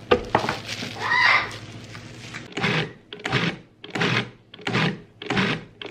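Food processor pulsed in five short bursts about two-thirds of a second apart, coarsely chopping chunks of pork. Before the pulses come plastic clicks and clatter as the lid goes on.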